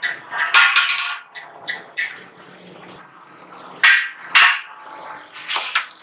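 Irregular sharp knocks and clanks of thin galvanized sheet metal as a gas water heater's central flue pipe is pushed and worked into the top of the tank shell, with a brief metallic ring after the louder knocks.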